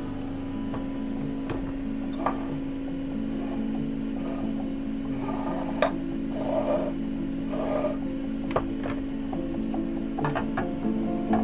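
Soft background music on a long held note, with a few light clicks and short knocks scattered over it, loudest around the middle.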